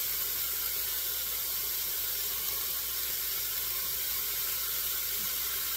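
Diced beef sizzling steadily in a hot pan on high heat, its released juices mostly boiled off so it is starting to brown.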